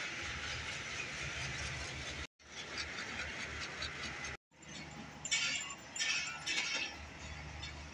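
Passenger train moving slowly out of a station, heard from an open coach doorway: a steady low rumble and hiss of the rolling coaches, with a few louder short bursts between about five and seven seconds in. The sound drops out twice for a moment.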